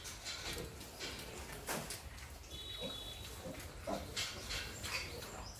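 A sow and her young piglets making short grunts, with a brief high squeak about two and a half seconds in and scattered short knocks.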